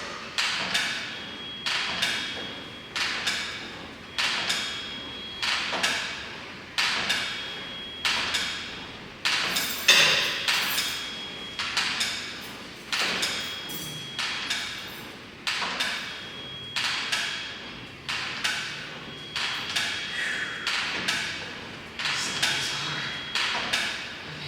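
Elliptical trainer knocking rhythmically with each stride, about one thump every three-quarters of a second, with a faint high squeak between some strides.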